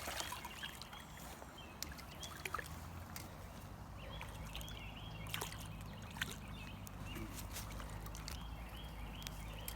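Faint running stream water, with a few light clicks and faint high chirps now and then.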